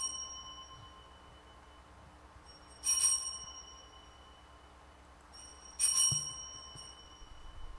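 Altar bells (sanctus bells) rung three times, about three seconds apart, each ring a bright metallic jingle that dies away over about a second. They mark the elevation of the consecrated host at the consecration of the Mass.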